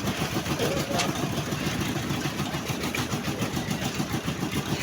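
Engine running steadily with a fast, even chug, such as the machinery used in a concrete slab pour.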